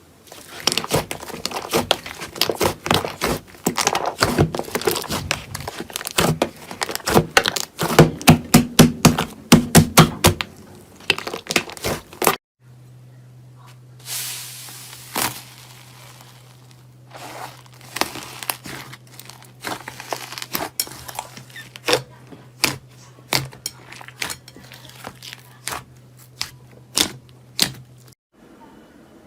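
Slime being played with and pressed, giving dense crackling and popping clicks for about twelve seconds. After an abrupt cut, sparser pops and clicks follow over a steady low hum.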